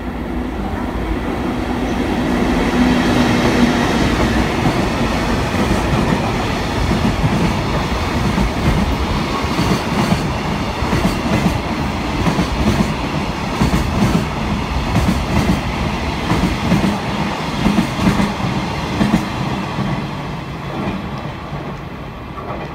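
JR Freight EF64 1000-series electric locomotive passing at speed with a steady hum, followed by a long train of container wagons whose wheels clatter rhythmically over the rail joints. The sound builds as the locomotive goes by and fades near the end as the last wagons draw away.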